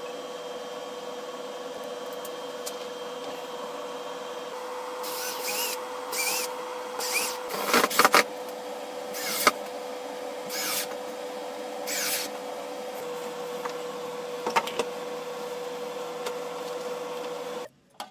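A steady electrical hum with a constant tone, broken in the middle by about eight short bursts of a power screwdriver driving screws into an MDF board, the loudest cluster about eight seconds in. The hum cuts off just before the end.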